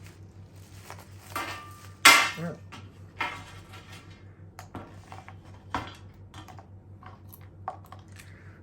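Kitchenware being handled: scattered knocks and clinks of dishes and metal, with one loud clatter about two seconds in.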